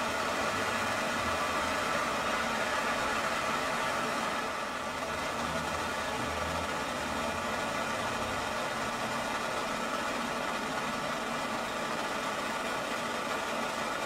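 Handheld gas torch burning with a steady hiss, a little quieter from about four and a half seconds in.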